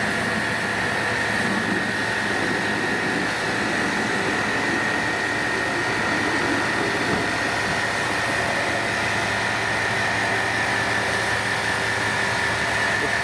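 A machine running steadily: an even drone with a constant high-pitched whine over it that does not change.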